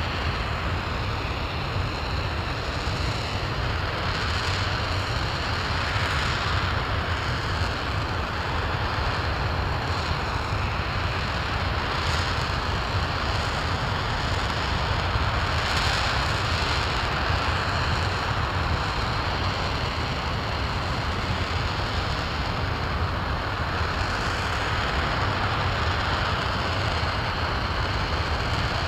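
An RS-25 liquid-hydrogen/liquid-oxygen rocket engine firing steadily in a long hot-fire test: a loud, continuous deep rumble with a rushing hiss over it that holds level without a break.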